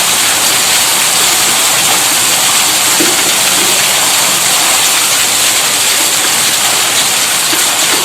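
Steady rushing hiss of water gushing from a tube-well pump driven by an electric motor, unbroken and even, with no motor hum standing out.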